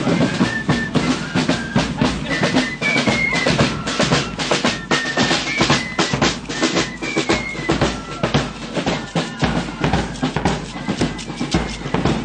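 Drumming: several drums beaten in a fast, steady rhythm, with a few short high tones over the beat.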